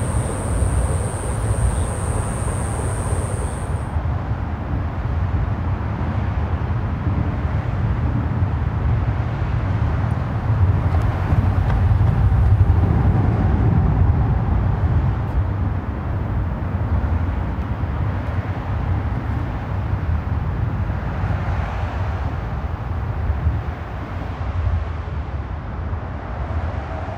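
Steady low outdoor rumble, with a thin high tone that cuts off about four seconds in; the rumble swells a little near the middle.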